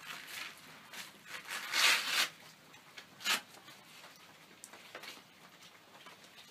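Hook-and-loop (Velcro) straps of an EasyBoot Glove Back Country hoof boot being ripped open on a horse's front hoof: a long tearing rip about two seconds in and a short sharp one about a second later, with small rustles and clicks between.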